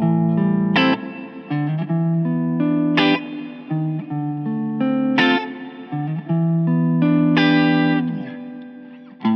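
Electric guitar, a thinline Telecaster with P90 pickups, playing chords: each one struck sharply about every two seconds and left to ring, the last fading out near the end.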